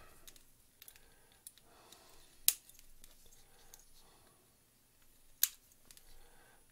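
Side cutters snipping component leads on a small circuit board: two sharp snips about three seconds apart, with a few faint clicks of handling between.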